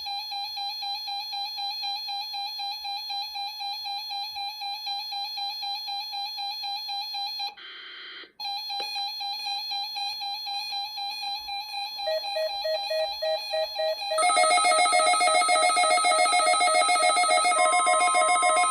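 Weather alert receivers sounding warbling electronic alarm tones, set off by a NOAA Weather Radio weekly test signal. One warble cuts out briefly just before halfway. A second warble joins about two-thirds through, and from about three-quarters through several warbles sound together, louder.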